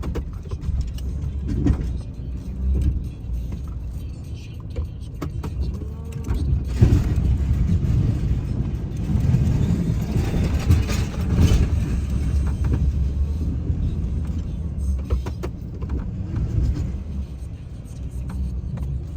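Snow plow truck running with a steady low rumble, growing louder and rougher for a few seconds in the middle.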